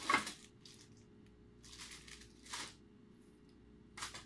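A few short rustles and light clatters of plastic LED modules and their wires being handled and pulled from a tangled pile.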